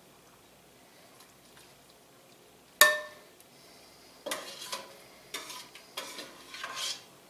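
A metal ladle clinks once against a pot with a short ringing tone about three seconds in. It then scoops and scrapes through chunky tomato and vegetable sauce in three noisy strokes near the end.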